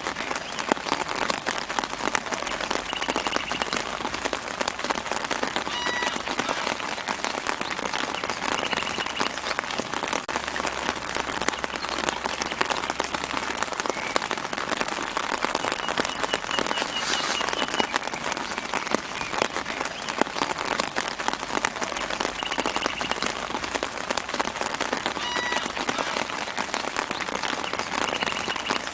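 Steady light rain pattering on foliage, a dense even hiss of many small drops. A few brief high bird chirps sound now and then over it.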